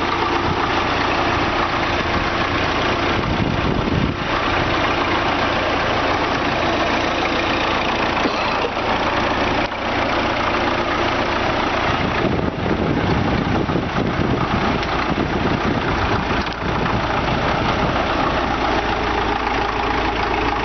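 A bulldozer's heavy diesel engine running continuously, its note shifting somewhat in the middle.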